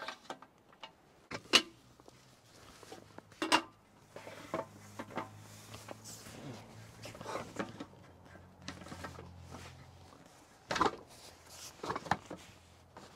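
Metal frame parts of a stacking camping cot being handled and fitted together: a few sharp knocks and clicks as adapter pieces and bars seat into the frame, with rustling of the cot fabric in between.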